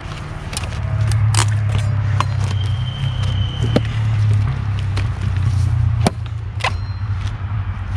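Sharp knocks of a machete blade and pieces of hard, dry oak striking each other, about six in all, the sharpest about six seconds in, over a steady low rumble.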